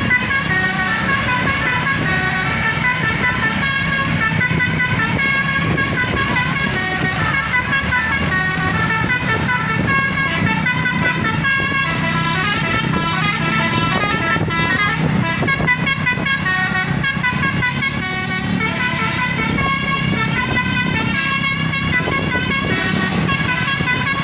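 A bus's basuri musical horn playing a melody of stepped, held notes that change every fraction of a second, over a steady low rumble.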